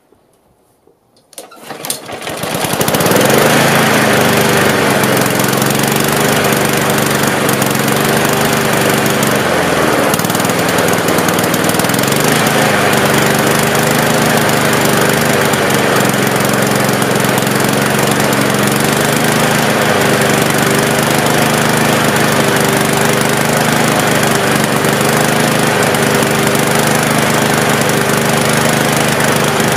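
Snapper Ninja push mower's Honda engine pull-started with the choke on: it catches about two seconds in and runs steadily, its speed dipping briefly twice before settling. It runs now that its clogged carburetor jets have been cleaned, curing a fuel problem that kept it from starting.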